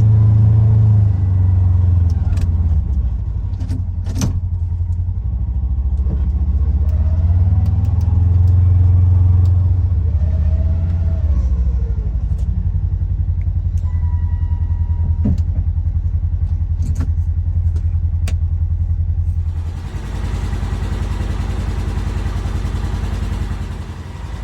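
Polaris Ranger XP 1000 UTV's twin-cylinder engine running and changing speed as it drives and plows on ice, with scattered knocks and clunks. A steady hiss joins it near the end.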